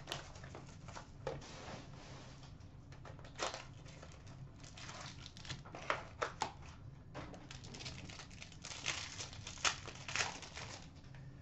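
Foil hockey card pack wrapper crinkling and tearing as it is opened by hand and with a knife, among small clicks and knocks from handling the cardboard box. The crinkling is densest about seven to ten seconds in.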